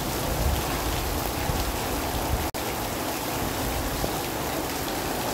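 Steady monsoon rain falling on a flooded street, an even hiss of drops on standing water. The sound cuts out for an instant about halfway through.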